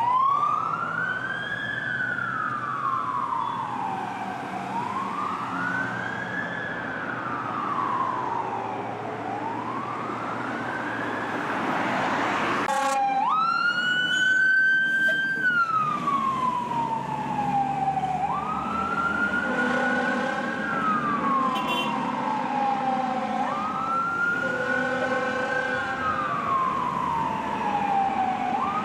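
Fire department emergency vehicle sirens wailing as the apparatus pass, in slow rising and falling sweeps about four to five seconds apart. About halfway through, a louder siren takes over that rises quickly and falls slowly. Heavy vehicle engines and traffic run underneath.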